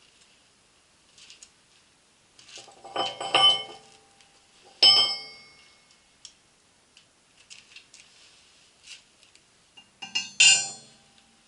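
Metal tools and steel parts being handled and set down, clinking and clanging with a short ring; three louder clanks, about three seconds in, about five seconds in and near the end, among lighter clicks.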